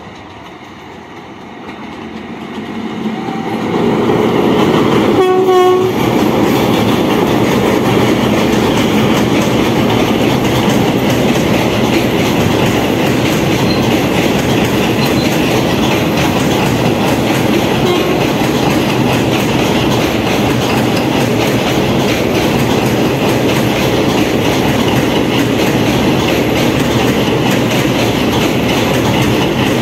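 Electric-hauled passenger express train approaching and passing close by: the rumble builds over the first few seconds, a short horn blast sounds about five seconds in, then the steady clickety-clack of coach wheels over the rail joints.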